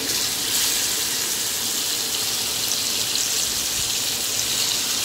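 Masala-coated fish steaks shallow-frying in hot oil in a pan: a steady high sizzling hiss that grows a little louder about half a second in, as a second steak is laid into the oil.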